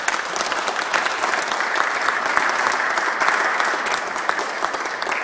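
Audience applauding: dense clapping from many hands, easing off a little near the end.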